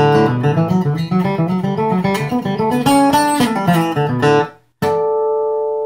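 Steel-string acoustic dreadnought guitar flatpicked with a triangular Chicken Picks pick: a quick single-note bluegrass run that stops about four and a half seconds in, then one final chord struck and left ringing.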